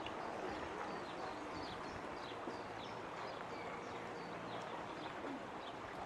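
Small songbirds chirping, short high calls about twice a second, over the soft steady rush of a stream.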